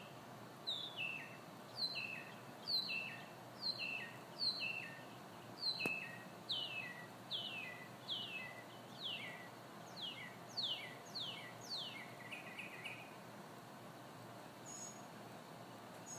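A songbird singing a long phrase of repeated down-slurred whistled notes, about two a second, which grow quicker and end in a short trill. Steady hiss underneath.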